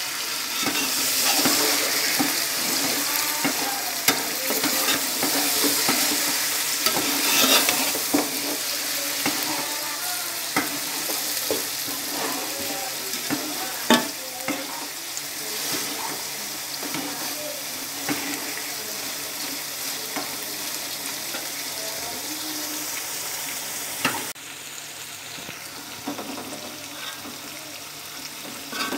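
Mutton pieces frying in a large metal pot, sizzling steadily while a metal slotted spoon stirs them, with repeated scrapes and knocks against the pot and one sharper knock about halfway through. The meat is browning with the onions before any water goes in. The sizzle drops a little near the end.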